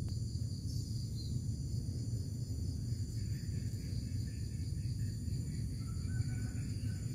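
Steady outdoor ambience: a constant low rumble with a faint, steady high-pitched insect trill over it, like crickets, and a few faint chirps in the second half.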